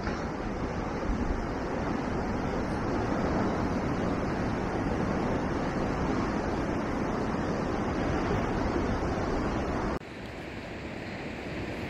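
Ocean surf breaking on a rocky shore below, a steady rushing mixed with wind on the microphone. About ten seconds in, it drops abruptly to a quieter hiss.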